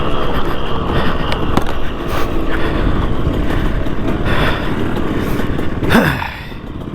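The single-cylinder two-stroke engine of a 2003 KTM 200 SX motocross bike running hard while the bike is ridden, its pitch rising and falling with the throttle. About six seconds in, the revs drop sharply as the throttle is shut off.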